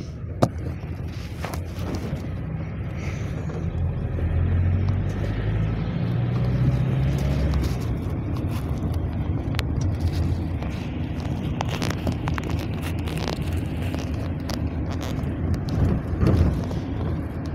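Cabin sound of a moving GAZelle Next minibus: the engine runs under steady road rumble, with frequent rattles and knocks from the body. The engine gets louder for a few seconds about four seconds in, and there is a sharp knock just after the start and a louder clatter near the end.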